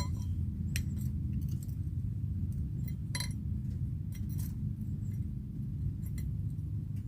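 Cadillac ATS engine running with a steady low rumble, with light metallic clinks now and then, irregularly spaced.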